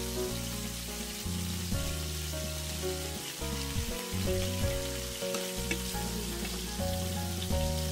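Beef large intestine and webfoot octopus sizzling and frying in their fat on an electric grill pan, a steady crackling hiss. Background music with a bass line and a simple melody plays over it.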